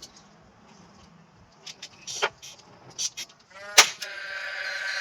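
A few light clicks and knocks, then a sharp knock followed by a steady pitched whine, a small motor running.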